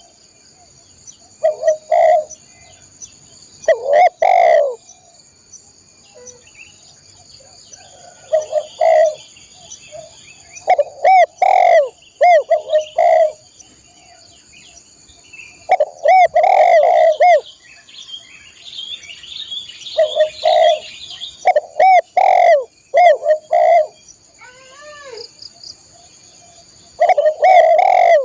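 Spotted dove (tekukur/derkuku) cooing loudly in repeated short phrases of a few coos each, separated by pauses of one to two seconds.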